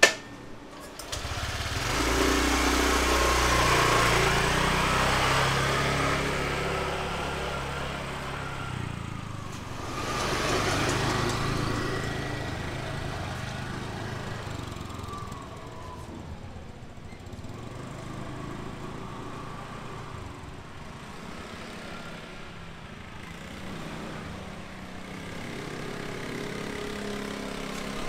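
Motor scooter engines passing close by: one loud and near for several seconds from about two seconds in, another swelling up about ten seconds in, and a third approaching near the end. There is a sharp click right at the start.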